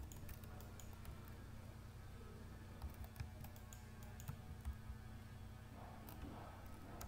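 Computer keyboard keystrokes: a few scattered, faint key taps as a word is typed, over a low steady hum.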